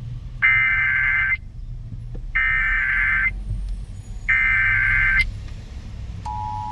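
Emergency Alert System required monthly test on SiriusXM: three bursts of SAME header data, each about a second long and about two seconds apart. Near the end the steady two-tone EAS attention signal begins.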